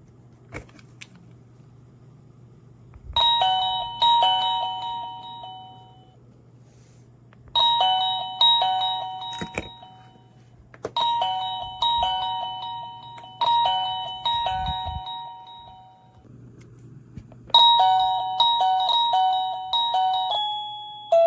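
OFFNOVA wireless caregiver pager receiver playing its electronic doorbell-style chime melody four times, each burst starting with a short click as a call button is pressed.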